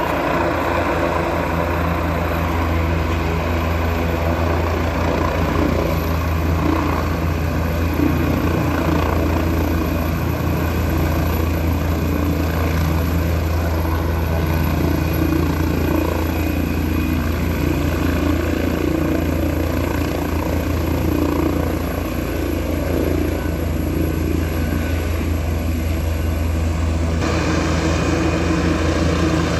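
Helicopter running steadily with a low, even hum from the rotor and engine. A faint high whine stops a few seconds before the end.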